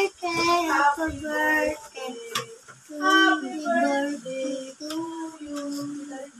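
Young children singing a song, their voices holding notes between short breaths.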